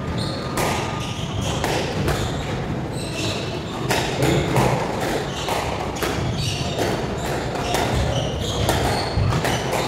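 Squash rally: the ball cracking off rackets and the court walls in quick, irregular succession, with the players' footwork on the wooden court floor.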